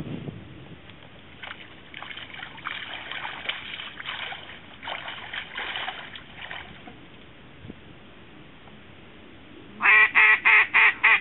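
Faint scattered duck quacks, then, near the end, a loud, rapid, evenly spaced run of quacks from a mallard duck call, about four a second.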